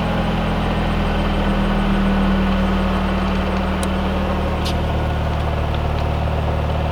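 The turbocharged four-cylinder of a 2002 Mazdaspeed Protege5 with a straight-pipe turbo exhaust idling steadily, now running on a freshly installed Unichip piggyback tuner.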